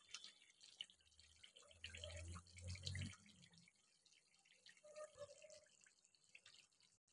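Faint, irregular popping and bubbling of a thick chicken curry simmering in a pot, with a brief low rumble about two to three seconds in.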